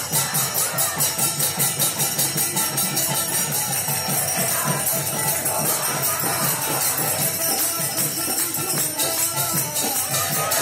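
Kirtan music: small hand cymbals or jingles struck in a fast, steady rhythm, with voices singing.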